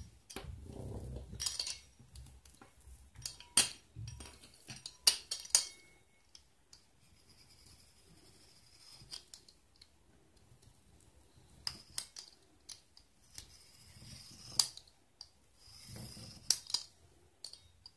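A fluted pizza-cutter wheel rolling through thin rolled cookie dough on cling film, with faint scraping and scattered sharp clicks and taps as the cutter is set down, pushed and lifted.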